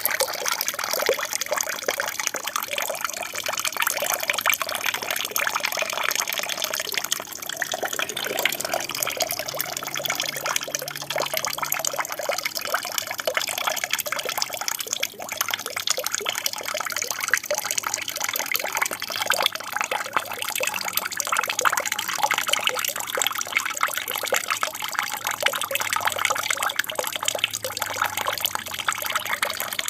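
Water from a small aquarium waterfall, falling and splashing steadily.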